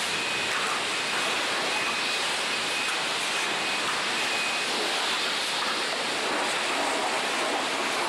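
Car-wash pressure-washer spray hissing steadily, with a faint high whine that comes and goes during the first half.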